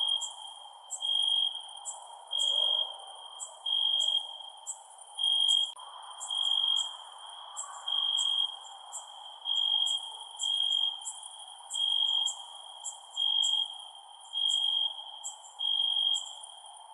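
Crickets chirping at night: one cricket's steady-pitched chirp comes in regular pulses a little over once a second, with quicker, higher chirps from other crickets between them, over a steady low hiss.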